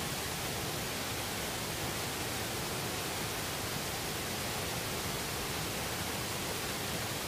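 Steady rushing hiss of floodwater flowing fast across a paved highway, an even noise with no breaks.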